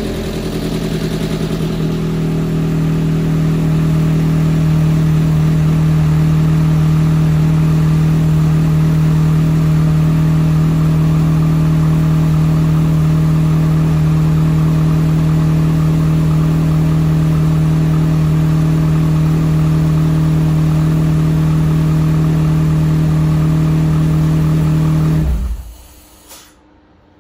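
Freshly rebuilt Z22SE four-cylinder engine running at a steady speed on its first start after the rebuild. It settles in over the first few seconds, then is shut off and stops abruptly about 25 seconds in.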